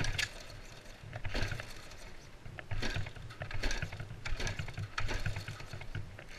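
A Ural Tourist motorcycle being pushed by hand with its engine off. Repeated crunching footsteps and tyres on gritty asphalt go over a low rolling rumble.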